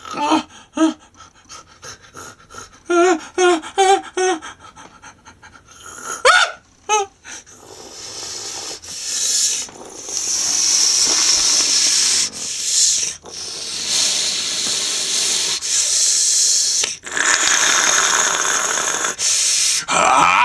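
A person's voice making non-speech sounds: a few short pitched vocal sounds at first, a quick run of repeated syllables a few seconds in, then from about eight seconds a long, loud, breathy hissing and panting with brief breaks.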